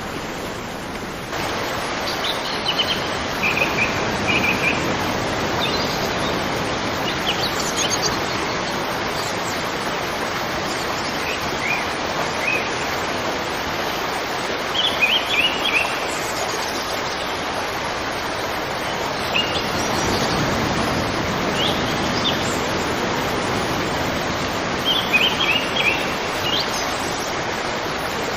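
River water flowing with a steady rush that steps up slightly about a second in, while birds chirp now and then in short runs of high notes.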